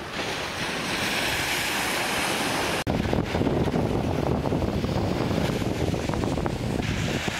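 Beach ambience: steady surf hiss with wind buffeting the microphone. About three seconds in it breaks off abruptly and comes back with heavier, gusting low wind rumble.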